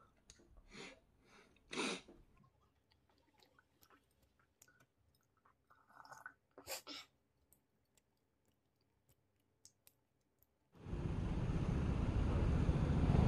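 Quiet chewing with a few soft crunches and clicks. About eleven seconds in, a steady rushing noise starts abruptly and grows louder.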